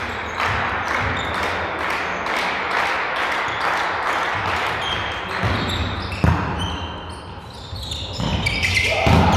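A volleyball being struck and bouncing on the court in a large sports hall, over steady crowd noise. There is a sharp ball strike about six seconds in, and the crowd noise dips briefly before rising again near the end.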